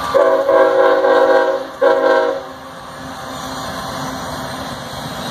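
Norfolk Southern diesel locomotive's air horn sounding a chord of several tones: one long blast, then a short one. After that the locomotives run past steadily.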